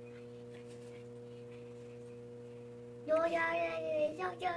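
Faint steady electrical hum, then about three seconds in a long, drawn-out voice sound that glides slowly down in pitch.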